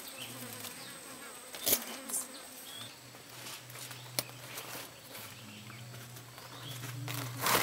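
An insect buzzing close by, a low drone that comes and goes and then holds steady, with a few dry crackles of pandanus leaf strips being woven, the loudest near the end.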